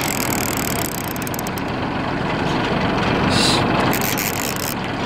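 Boat engine running steadily under a dense rush of sea and wind noise, with a brief hiss about three and a half seconds in.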